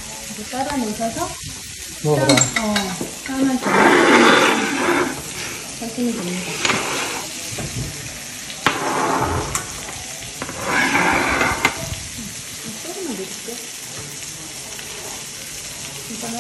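Vegetables frying in oil in a frying pan: a steady sizzle that swells loudly three times as vegetables are added and stirred, with a few light taps of utensils on the pan.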